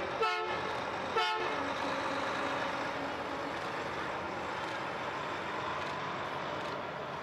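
Two short vehicle horn blasts about a second apart, over a steady haze of outdoor traffic noise.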